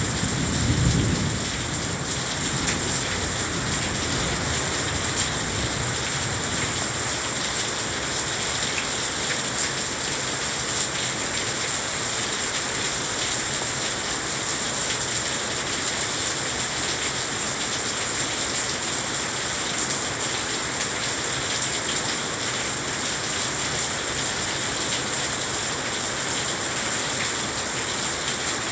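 Heavy rain pouring steadily, a dense even hiss of drops. A brief low rumble comes in the first second or two.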